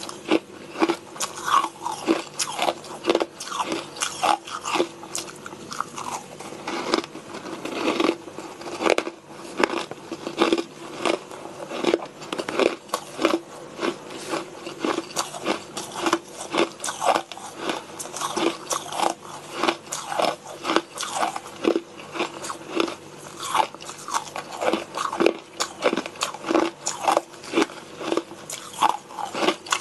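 Yellow-flavoured crushed and shaved ice being bitten and chewed, with sharp crunches about two a second.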